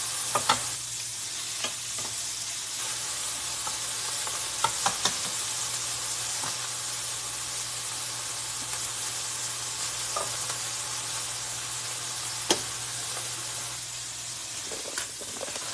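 Chicken pieces sizzling steadily in a hot nonstick skillet, with a few short sharp clicks as metal tongs turn them in the pan.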